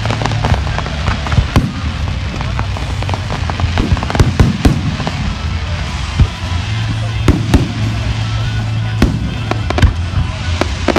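Aerial fireworks bursting overhead: many sharp bangs at irregular intervals over continuous crackling.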